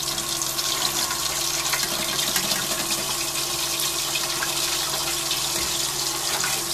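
Hot oil sizzling and crackling steadily around kalojam (fried chhana-and-mawa sweet balls) deep-frying in a pan, with a slotted spoon moving among them.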